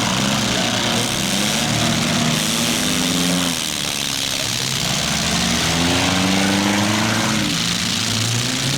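Compact-car engines revving, the pitch climbing and dropping off twice, over a steady hiss of background noise.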